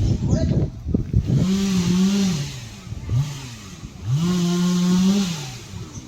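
A small engine revved up and let back down twice, each rev held steady for about a second before dropping back.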